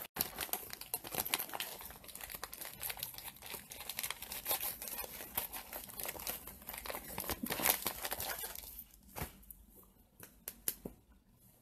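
Packaging crinkling and rustling as it is handled: a busy stream of crackles for most of the time, thinning to a few light clicks in the last few seconds.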